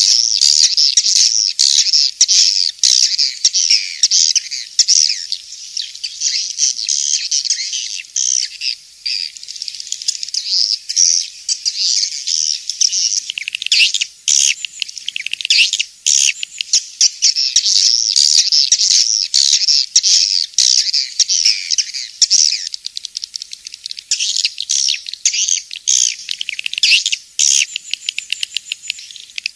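Swiftlet lure call recording: a dense, continuous chatter of swiftlet chirps and twitters, high and thin with no low tones, broken only by a few brief lulls. This is the kind of call track played in swiftlet houses to draw edible-nest swiftlets in to roost and nest.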